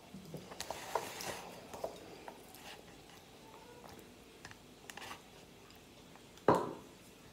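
Eating utensils clicking and scraping against a paper ramen cup and plate as noodles are stirred and lifted, with one sharp knock about six and a half seconds in.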